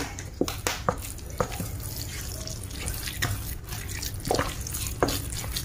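Wooden spatula stirring a wet mash of crumbled tofu and flour in a stainless steel bowl: irregular soft taps, scrapes and squelches as the mix is worked.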